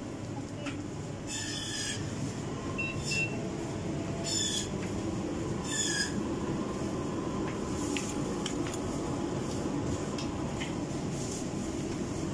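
Shopping cart wheels rolling and rumbling over a tiled supermarket floor, with short high squeaks about four times in the first half.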